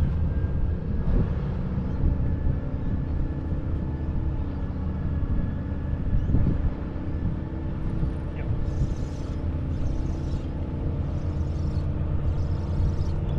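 A boat motor running steadily, a low hum, with a few short hissing bursts in the last few seconds.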